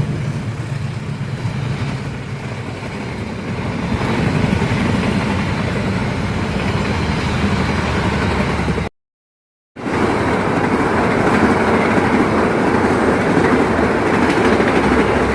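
Train running past on the track: a steady rumble and rattle of wheels and cars. It breaks off for a moment about nine seconds in, then continues.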